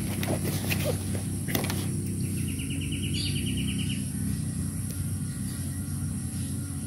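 Steady outdoor ambience: a low rumble under a constant high insect drone. A bird gives a rapid trill about two seconds in, lasting under two seconds, and a few light clicks come in the first couple of seconds.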